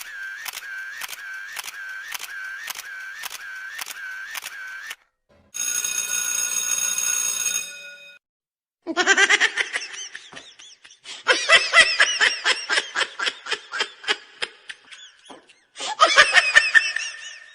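A string of separate sound effects. First a pitched tone repeats about twice a second for about five seconds. Next comes a short held ringing tone. Then, from about nine seconds in, a voice laughs in rapid bursts, with a short break before a final burst of laughter near the end.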